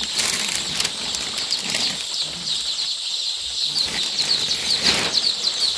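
A crowd of young layer chicks peeping continuously, a dense chorus of short, high cheeps, with a few soft knocks.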